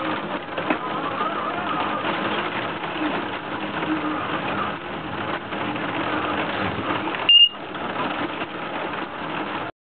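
A single short, high-pitched electronic beep about seven seconds in, the lightning detector prototype's alert, over steady background noise with faint wavering tones.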